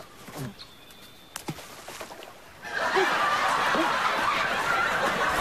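Audience laughter breaks out suddenly about two and a half seconds in and carries on loudly; before it there are only a few faint knocks and a short voice.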